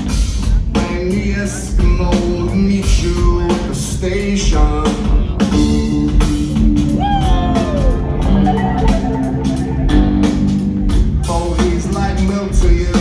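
Live rock band playing at full volume: drum kit, bass and guitar, with one note that swoops up and slides down about seven seconds in.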